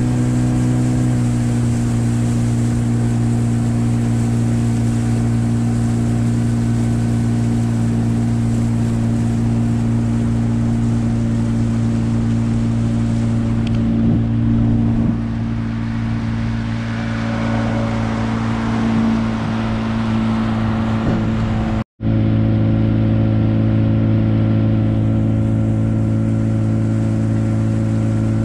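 Gladiator 9.9 outboard motor running steadily at a constant speed, pushing a small boat. There is a brief cut in the sound about three-quarters of the way through.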